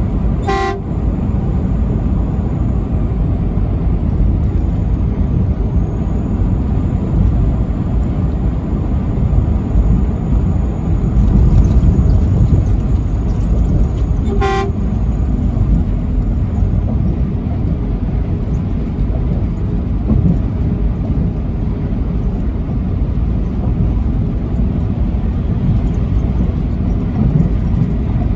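Two short blasts of a truck horn, one right at the start and one about fourteen seconds later, over the steady road and engine rumble of a vehicle moving at highway speed.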